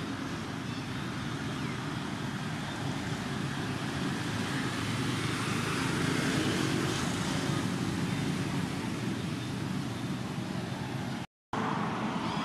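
Steady outdoor background noise, an even rumble and hiss with no distinct events, cutting out completely for a split second near the end.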